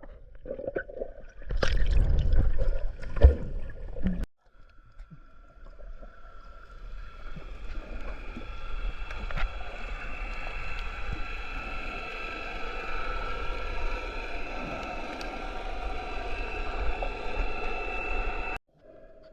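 Water splashing at the surface for the first few seconds. Then, after a cut, muffled underwater ambience with a faint steady high hum, as of a camera held under water while snorkelling.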